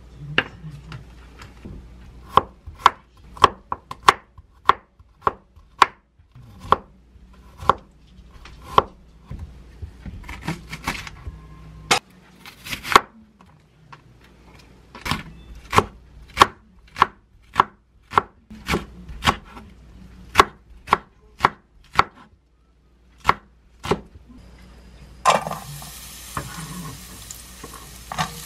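Kitchen knife slicing garlic and green onion on a wooden cutting board: crisp single strokes about two a second, with a few short pauses. About 25 seconds in, the sliced garlic and green onion go into hot olive oil in a nonstick frying pan and begin to sizzle.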